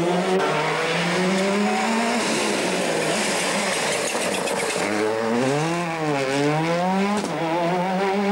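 A rally car's engine revving hard as it drives a stage: the pitch climbs, is half-buried by a loud rush of tyre noise as the car goes by, then drops and climbs again as it comes off and back on the throttle.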